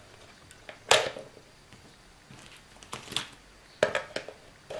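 Batteries being swapped in a Thrunite MCC-2 charger's spring-loaded slot: a lithium-ion cell pulled out and set down, and a NiMH AA cell pushed in. A sharp click about a second in, then several small clicks and knocks in the last two seconds.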